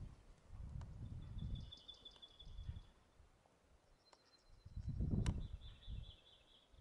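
Wind buffeting the microphone in gusts, strongest a little past halfway, while a small bird sings two high, thin trills.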